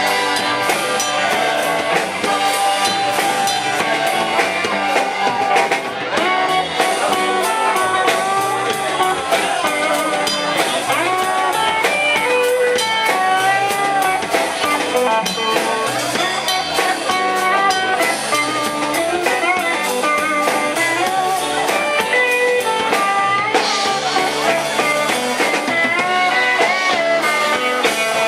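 Blues-rock band instrumental break: a lead guitar plays a solo of bending, sliding notes over a drum kit and the rest of the band.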